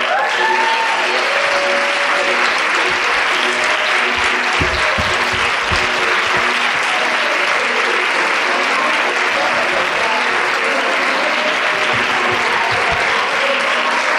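Audience applauding steadily at a curtain call, with music playing underneath.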